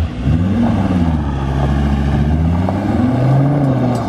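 Truck engine revving hard, its pitch rising and falling several times as the truck spins its wheels doing donuts on dirt.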